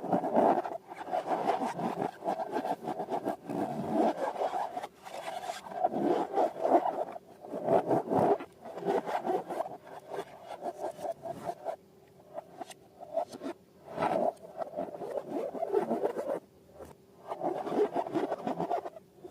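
Hands rubbing and scraping balloons and slime in irregular bursts with short pauses, a squeaky, scratchy texture.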